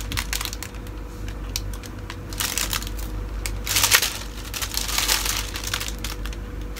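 Clear plastic wrapping crinkling and rustling as new kitchen knives are pulled out of it, with light clicks of handling; the loudest rustle comes about four seconds in.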